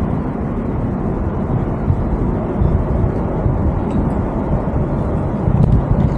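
Wind buffeting an action camera's microphone: a steady, fluctuating low rumble with no clear pitch.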